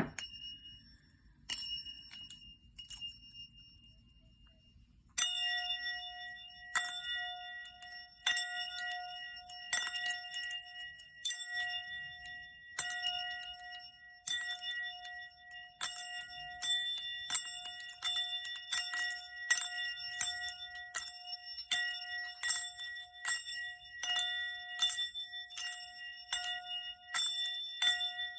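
Sound-healing bells: a few single high chime strikes at first, then from about five seconds in a steady ringing singing-bowl tone, with quick bright bell strikes about two a second over it.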